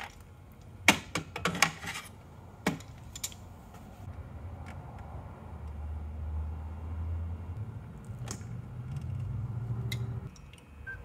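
Steel pliers clinking and clattering against a steel casting mold and a lead pot: a cluster of sharp metal clicks in the first three seconds, then a few lighter ticks. A low steady hum comes in about halfway through.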